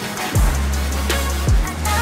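Background music with a heavy beat: two deep bass-drum hits that drop in pitch, about a second apart, over a held bass.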